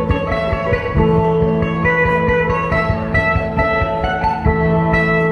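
Dayak sape' (plucked boat lute) music playing a repeating melody of held notes over a steady low drone, with a regular pulse low down.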